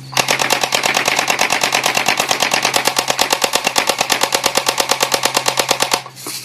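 P90 electric BB gun firing one long full-auto burst of about six seconds, rapid evenly spaced shots at roughly ten a second, stopping abruptly near the end.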